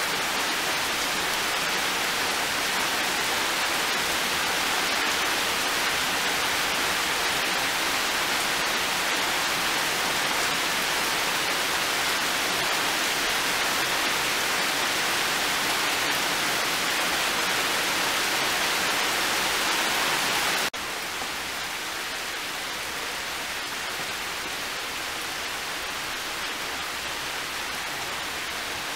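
Heavy rain pouring down in a dense, steady hiss. About two-thirds of the way through it drops abruptly to a softer level.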